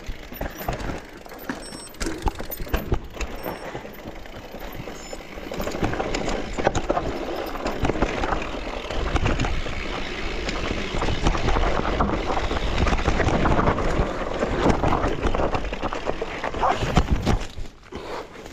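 Mountain bike riding down a rough dirt trail: tyres on dirt and the bike rattling and knocking over bumps, with many sharp clicks and knocks. It gets louder and more rushing about six seconds in.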